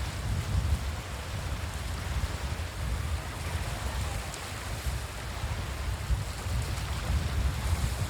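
Sea waves washing onto a beach as a steady hiss, with wind buffeting the microphone in an uneven low rumble.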